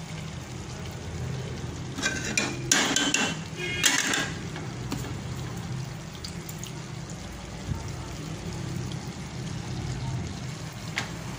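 A metal ladle clinks and scrapes against a metal cooking pot several times about two to four seconds in, over a steady low hum.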